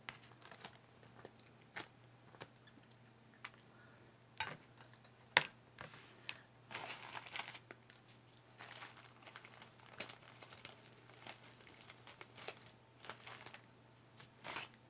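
Crinkling and rustling of handled packaging, with scattered small clicks and taps as jewelry is put away and the next piece taken out. The loudest is a sharp click about five seconds in.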